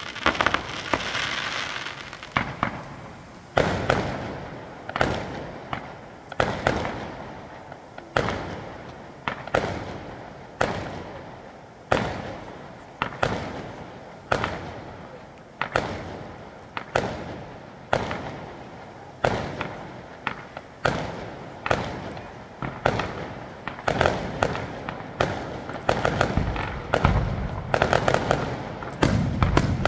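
Fireworks display: aerial shells bursting one after another, about one bang a second, each dying away over roughly a second. The bangs come faster and closer together in the last few seconds.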